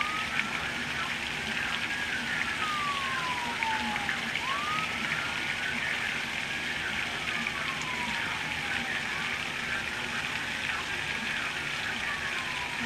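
Torrential hurricane rain pouring steadily. Over it runs an emergency vehicle's wailing siren: each cycle rises quickly and then falls slowly, repeating about every four to five seconds.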